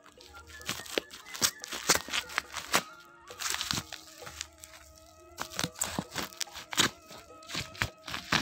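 Plastic courier bag and tape crinkling and tearing in sharp crackles as a parcel is opened by hand, over background music.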